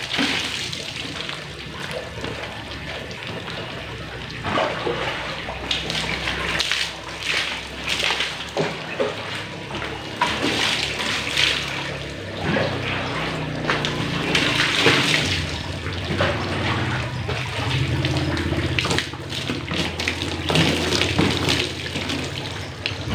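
Water poured from a hand dipper splashing over a scooter's plastic bodywork as it is rinsed of soap, pour after pour every few seconds, with water running off onto the ground in between.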